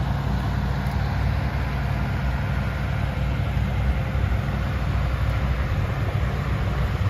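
Hitachi Zaxis 210 excavator's diesel engine running steadily.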